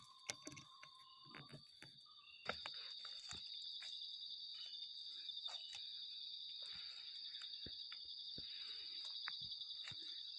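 Steady high-pitched insect chorus in forest, growing louder about two and a half seconds in, with scattered small clicks and rustles.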